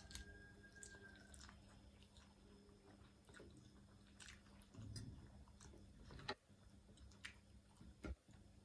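Faint close-up chewing and biting mouth sounds of someone eating, with scattered small wet clicks, two sharper ones near the end, over a steady low hum.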